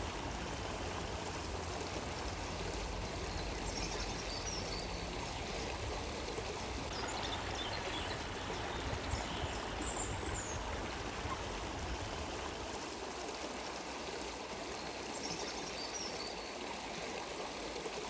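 Water of a small stream flowing steadily, a continuous even rush with trickling.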